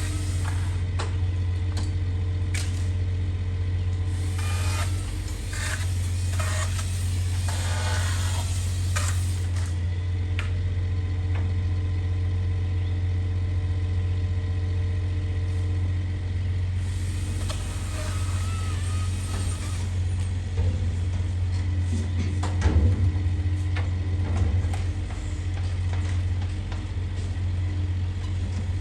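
Steady low engine drone at an unchanging pitch, with scattered knocks and rattles over it.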